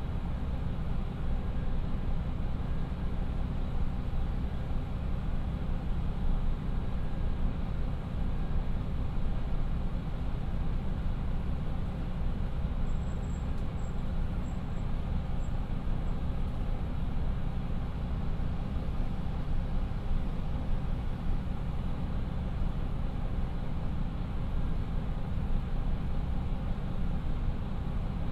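Two Niigata DMF13HS diesel engines of a KiHa 54 railcar idling while the railcar stands still, heard from inside the passenger cabin as a steady low hum.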